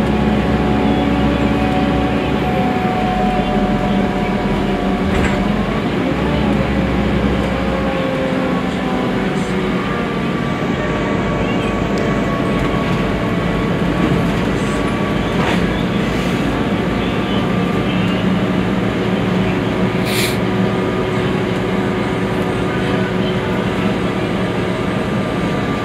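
Cabin noise inside a Scania articulated city bus under way: a steady engine drone mixed with road and rolling noise.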